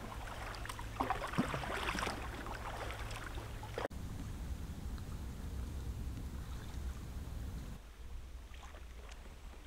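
Canoe and kayak paddles dipping and splashing in calm river water over a steady low rumble, with a sharp click about four seconds in.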